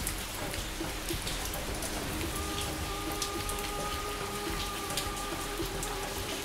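Steady rain falling into a puddle: a dense patter with many separate drop splashes on the water.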